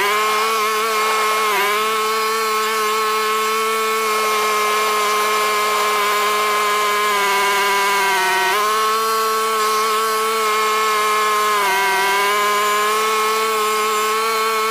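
John Deere X570 lawn tractor's V-twin engine running under load, driving a front-mounted two-stage snowblower through wet snow, played back at double speed so it sounds high and buzzy. The steady engine note sags briefly in pitch three times as the blower works.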